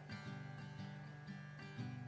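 Quiet background music: acoustic guitar notes with held tones beneath.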